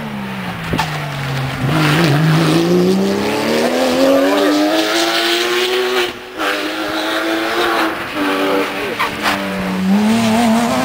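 Rally car engine revving hard as the car approaches, growing louder. The revs fall away, climb in one long pull, then drop sharply about six seconds in at a gear change, before falling and rising again near the end.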